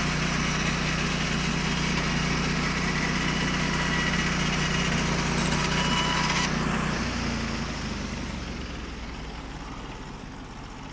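Portable sawmill's small gas engine running steadily while the blade cuts through a pine log. About six and a half seconds in the cutting noise stops, and the engine drops in pitch and falls quieter as it throttles down.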